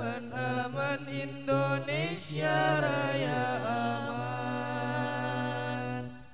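Men's voices chanting an Arabic devotional verse a capella, the melody bending up and down, then settling on a long held note that fades out near the end.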